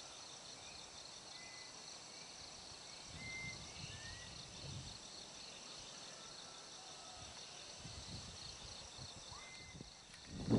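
Crickets chirping steadily at night in a high, evenly pulsing chorus, with a few faint short chirps over it. Right at the end a much louder noise cuts in.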